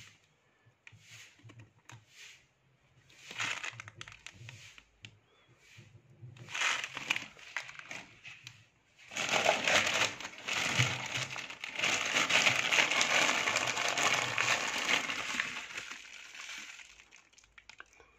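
Plastic bags holding dried Ayurvedic herbs crinkling and rustling as they are handled in the compartments of a wooden medicine box. A few soft rustles come first, then loud continuous crinkling from about halfway that dies away near the end.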